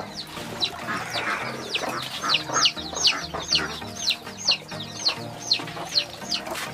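Young chicks peeping: a steady run of short, high cheeps, each falling in pitch, about three a second.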